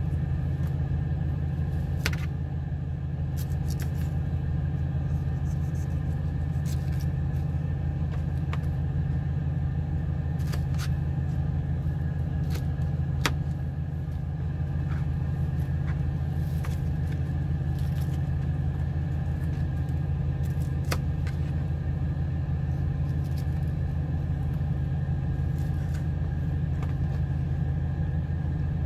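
A steady low hum with scattered light clicks of a kitchen knife against a plastic cutting board as pineapple is sliced.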